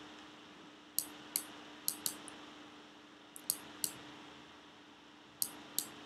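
Light, sharp clicks at a computer desk, coming in pairs about a third of a second apart, four pairs in all, over a faint steady hum.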